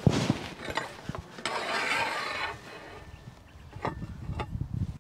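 Galvanised steel fence end-assembly being lowered onto steel posts, its down-tube sleeves sliding over the post tops: a sharp knock, a few clanks, then about a second of metal scraping, and near the end a couple of clinks and low knocks as it seats.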